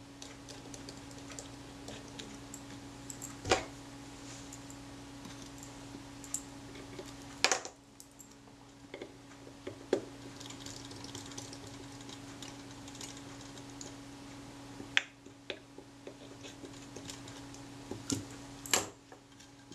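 Steel tweezers and small metal parts clicking and tapping against the Rolleiflex camera's metal body while the film-advance parts are fitted. A handful of sharp clicks come a few seconds apart, with fainter ticks between them, over a steady low hum.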